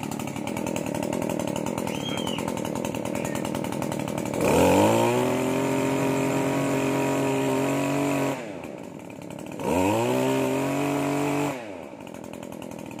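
Shindaiwa RK2026 backpack brush cutter's 26cc two-stroke engine idling, then revved on the throttle twice. About four seconds in it climbs to high speed and holds for about four seconds, falls back to idle, then revs again for about two seconds before dropping back to idle.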